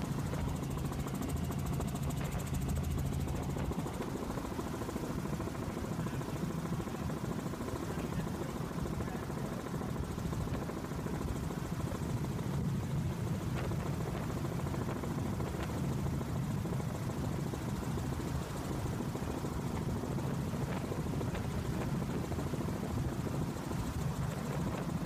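Helicopter in flight, heard from on board: a steady, low rotor and engine drone that does not change.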